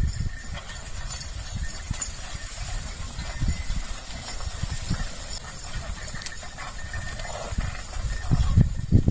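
Bullocks pulling a cart: hooves clopping with irregular low thuds, growing louder near the end.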